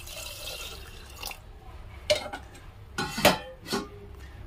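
Water pouring from a steel vessel into a pressure cooker of mashed dal, stopping about a second and a half in. Then a few sharp clattering knocks of kitchen utensils, the loudest about three seconds in.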